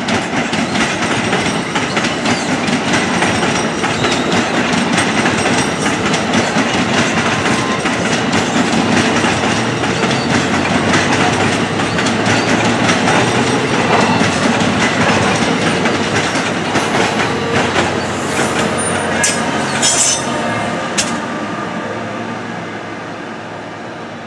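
New Jersey Transit Multilevel double-deck passenger train passing close by, its wheels clattering and rumbling over the rails, with an electric locomotive pushing at the rear. A few short, high wheel squeals come near the end, and the sound then fades as the train draws away.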